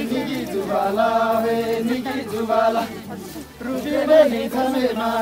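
A group of voices singing a Tamang mhendomaya folk song together in short, drawn-out phrases, with a brief pause just past the middle.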